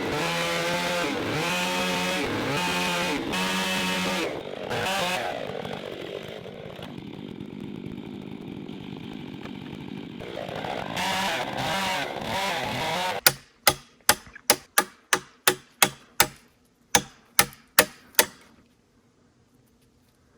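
Two-stroke chainsaw running, its pitch rising and falling about once a second, dropping lower for several seconds midway before picking up again. About two-thirds of the way in it cuts off suddenly and a run of about a dozen sharp knocks follows, two to three a second.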